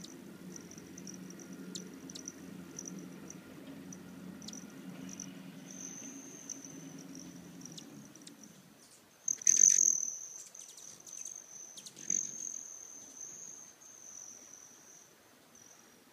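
Hummingbird wings trilling: the high, metallic, cricket-like buzz of a male broad-tailed hummingbird's wings, pulsing in short spurts at first and then steady. It is loudest as a bird whirs close past at about nine seconds, with a few sharp ticks in the first seconds and a low steady hum under the first half.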